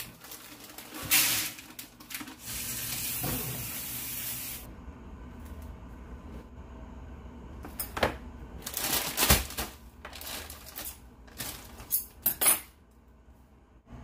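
Frozen peas poured from a bag onto a plastic food-dehydrator tray, a steady hiss for about two seconds, then a run of clatters and knocks as the plastic trays are handled and stacked.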